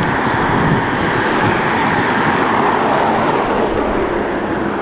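A car driving past close by on the road, its tyre and engine noise swelling and easing off around the middle, over steady street traffic noise.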